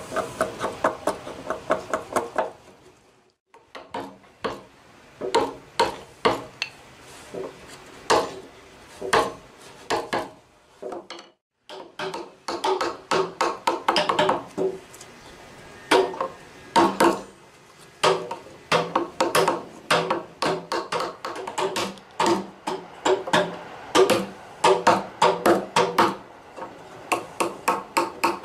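A Japanese carpenter's chisel (nomi) is driven into a timber beam with a steel hammer to cut a joint. The blows are sharp, ringing knocks in runs of a few a second, with short pauses between the runs.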